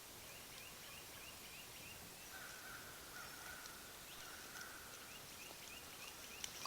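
Faint bird calls: two short runs of quick repeated chirping notes, a few seconds apart, with a steady whistled note between them.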